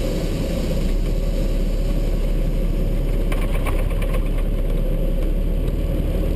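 Truck's diesel engine running steadily, heard from inside the cab, with a few faint clicks about halfway through.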